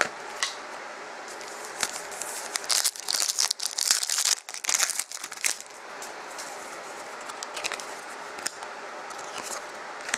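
Plastic wrapper of a Panini Contenders hockey card pack crinkling and tearing as it is opened. The crinkling is loudest from about three to five and a half seconds in, with small clicks and rustles of the wrapper and cards before and after.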